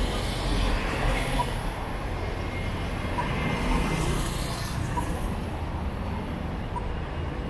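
Road traffic on a busy city street: cars driving past close by with engine and tyre noise, one passing car swelling up about four seconds in. A faint short beep repeats about every two seconds.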